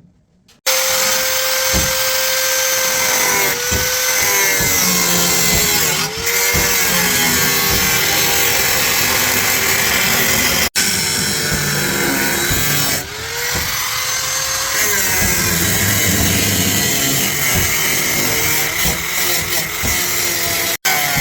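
Handheld electric power tool running continuously, its motor pitch sagging and recovering several times as it is pressed into the work. It drops out abruptly twice, about eleven seconds in and just before the end.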